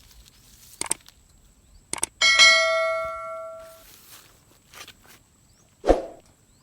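A single metallic bell-like ring, struck once and dying away over about a second and a half, with a couple of light clicks before it and a dull thump near the end.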